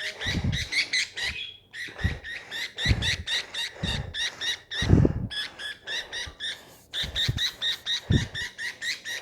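Budgerigars chirping in a fast, steady string of short high calls, about five a second, broken by a few brief pauses. Several dull low thumps come through.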